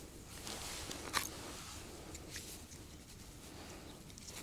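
Hands brushing together and handling a small ice-fishing rod and reel: soft rustling with small clicks, and one sharp click just over a second in.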